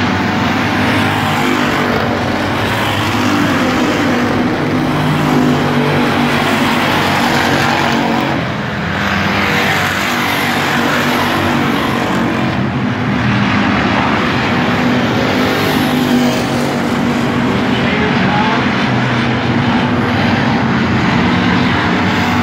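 A pack of dirt-track stock cars racing around the oval, several engines running hard at once. The sound dips briefly about eight seconds in, then swells again as cars come down the front stretch close by.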